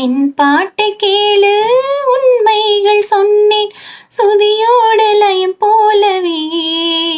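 A high, clear voice singing a Tamil song, holding long wavering notes in phrases with short breaks between them.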